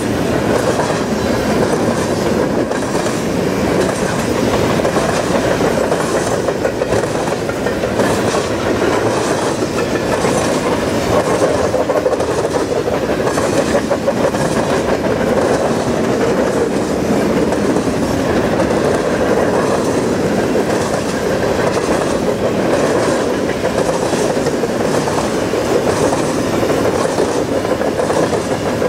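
CN freight train's covered hopper cars rolling steadily past, a continuous rumble of steel wheels on rail with clicking over the rail joints.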